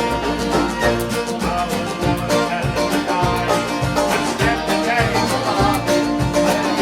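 A band playing a folk tune, plucked string instruments over a steady low beat.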